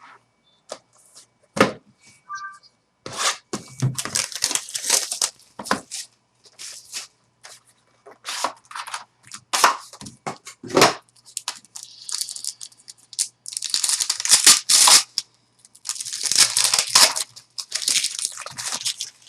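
Trading card box packaging being torn open by hand: a long run of irregular rips and crinkles of wrapper and cardboard, busiest in the second half.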